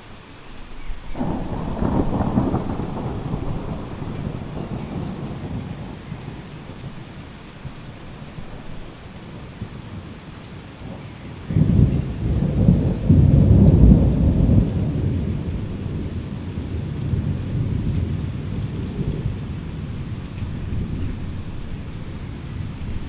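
Heavy rain falling steadily, with two rolls of thunder. The first rumbles in about a second in and fades over several seconds. The second, louder, breaks about halfway through and rolls on for several seconds.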